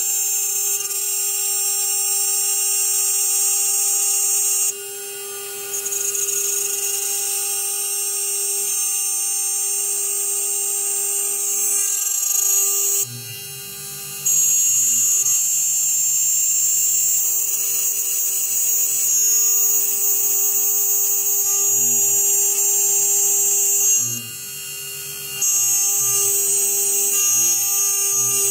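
CNC router spindle at 12,000 RPM driving a 3 mm carbide endmill through 1/2-inch polycarbonate: a steady high-pitched whine with cutting hiss. It dips in loudness briefly three times, and lower stepped tones come and go in the second half.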